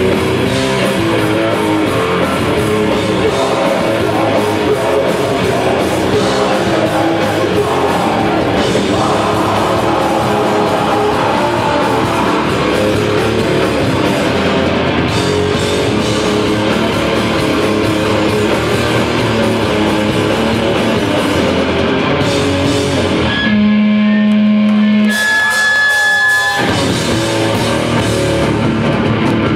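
Heavy metal band playing live at full volume: distorted electric guitar, bass and drum kit. About 23 seconds in, the band drops out for about three seconds, leaving one held tone, then comes crashing back in.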